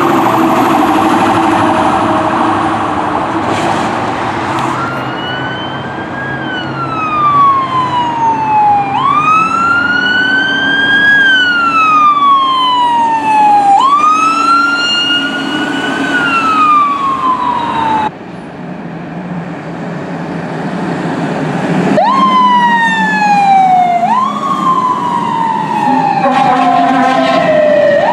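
Fire trucks responding under siren: a wailing siren rising and falling about every four to five seconds over the steady run of a diesel truck engine, with horn blasts at the start and again near the end. About two thirds of the way through, the sound cuts suddenly to another truck whose siren winds up again.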